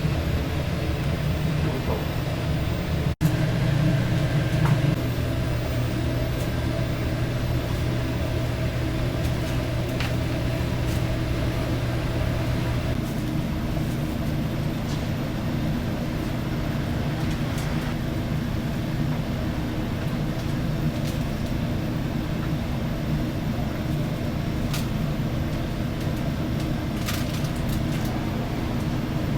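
Steady mechanical hum of commercial kitchen equipment, with a few faint clicks and clatters.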